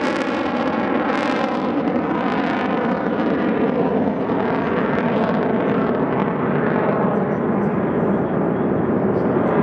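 Saab JAS 39 Gripen's Volvo RM12 turbofan roaring loudly as the fighter manoeuvres overhead. The roar has a shifting, phasing sweep that fades a few seconds in and comes back near the end.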